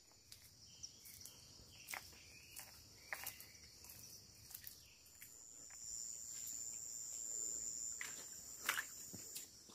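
Insects buzzing steadily in a high, thin band, growing louder from about halfway through, with irregular footsteps on the forest path.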